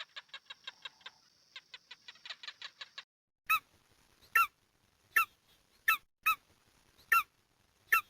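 Animal calls: a fast run of short, high chirps for about three seconds, then loud single calls repeated about once a second, each short and slightly falling in pitch.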